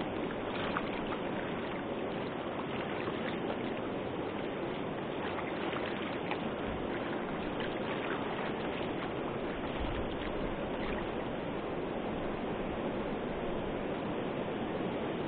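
Osage River current rushing steadily, a continuous wash of moving water.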